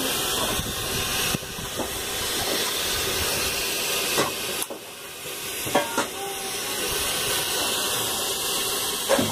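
Steam hissing steadily from a standing steam locomotive. The hiss drops briefly about halfway, and a few faint knocks sound over it.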